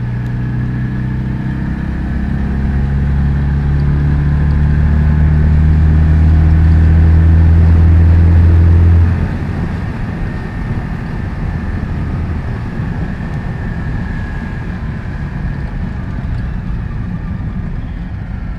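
Citroën 2CV's air-cooled flat-twin engine running while driving. It grows louder with a slowly climbing note, then about halfway through it drops suddenly to a quieter, rougher rumble with road noise.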